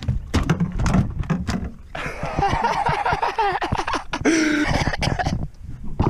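A series of knocks and low thumps as a landing net and a thrashing barramundi bang against an aluminium boat hull, thickest in the first two seconds.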